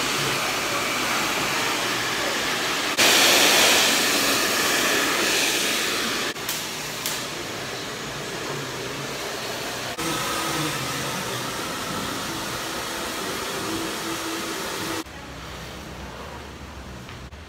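Handheld hair dryer blowing on wet hair, a steady rushing noise that jumps in loudness at several hard cuts and is loudest from about three to six seconds in. It stops abruptly at about fifteen seconds, leaving a quieter low room hum.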